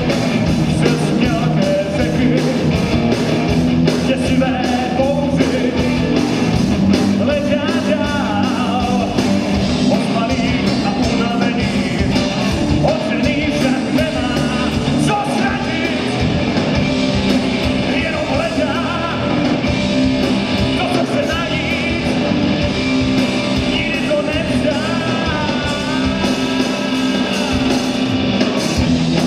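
Hard-rock band playing live: two electric guitars, bass guitar and drums, with a singer.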